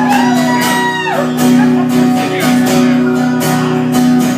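Acoustic guitar strumming chords in a steady rhythm, played live. A held sung note slides down and ends about a second in.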